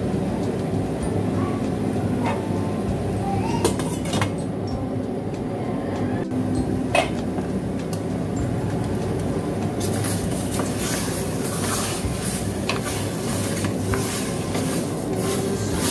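Chicken pieces sizzling in a stainless steel pot over a gas burner, over a steady low rumble. About ten seconds in the crackle grows as the pieces are stirred with a spatula, which scrapes against the pot.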